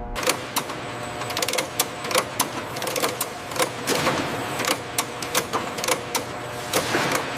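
Mechanical clicking and clacking: several sharp clicks a second, irregularly spaced, over a steady machine noise, starting abruptly.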